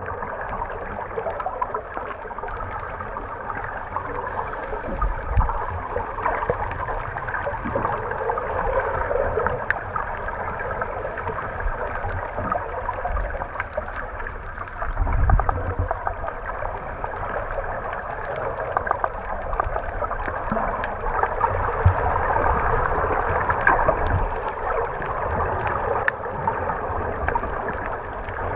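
Muffled underwater sound picked up by a submerged camera: a steady hiss of water with gurgling bubbles from scuba divers' exhalations, and occasional low thumps, the loudest about fifteen seconds in.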